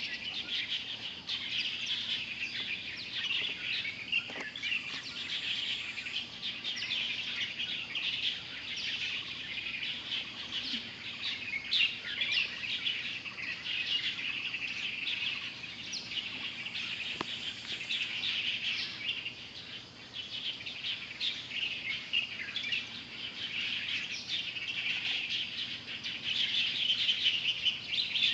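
Many small birds chirping together in a dense, continuous chorus of short, high notes, busiest near the end.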